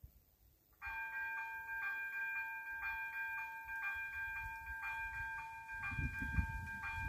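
Level-crossing warning bell of an AŽD 97 crossing starting up about a second in and ringing a steady tone struck about twice a second: the crossing has been activated for an approaching train. A low rumble comes in near the end.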